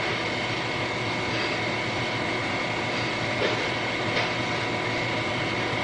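Steady background hiss of the recording, with a low hum and a faint thin high tone running under it, in a pause of a recorded talk.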